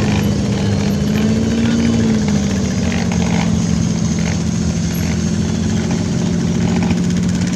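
Off-road vehicle engines running at steady revs. The main engine note drops a little about two seconds in, then holds.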